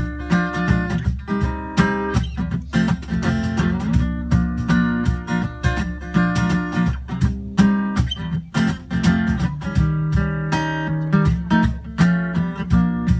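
Instrumental break of a live folk song: acoustic guitar strummed in a steady rhythm with cajon hits under it.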